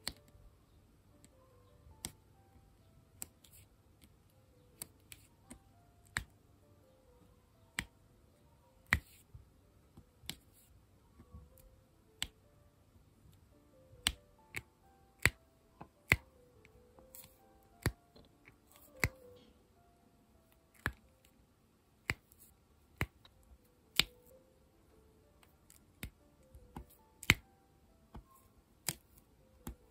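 Diamond painting pen setting plastic diamond beads onto the sticky canvas: sharp little clicks and taps at irregular intervals, about one a second. Faint soft music plays underneath.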